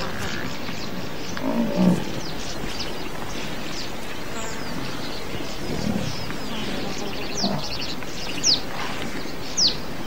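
Wild savanna sound over a steady background hiss: a couple of low, soft grunts from a large animal, then three sharp, falling whistled bird calls about a second apart near the end, the last two the loudest.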